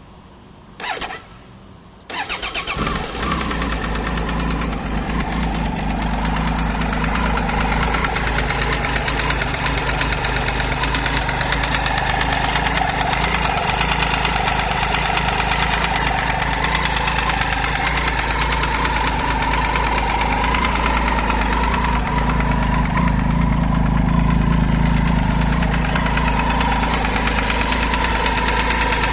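Triumph Tiger 800 XC's three-cylinder engine being started: a short burst about a second in, then it catches about two seconds in and idles steadily with a ticking from the engine that the owner is trying to find the cause of.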